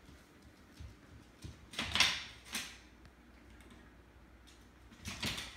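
Border Collie puppy playing with a toy on a hardwood floor: short scuffling, scraping noises. The loudest come about two seconds in, and another comes near the end.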